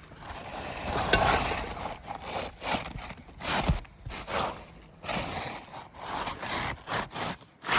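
Asphalt roofing shingles scraping and rubbing against each other in a run of short, rough strokes as a new shingle is worked into place.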